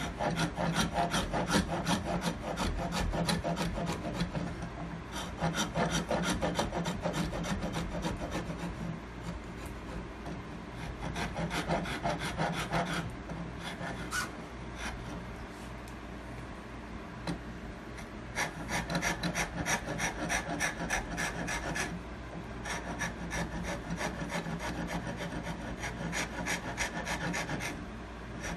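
A hand file rasping the wooden heel of a guitar neck in quick back-and-forth strokes, rough-shaping it. The strokes come in several runs with short pauses between.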